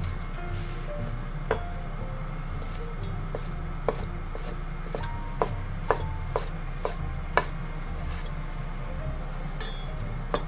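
Kitchen knife chopping aburaage (thin deep-fried tofu) into strips on a wooden cutting board: irregular sharp knocks as the blade strikes the board, coming about every half second in the middle stretch, with one more near the end.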